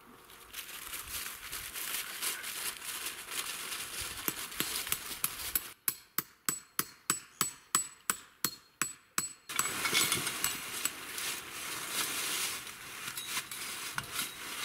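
Tent pegs being hammered into the ground: a run of sharp metallic strikes, about four a second for several seconds in the middle. Before and after it there is a rustle of dry leaves and tent canvas being handled.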